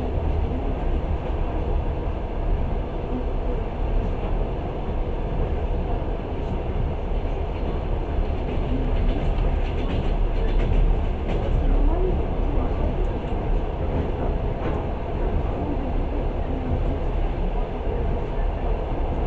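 Passenger train running steadily, heard from inside the carriage: an even, low rumble.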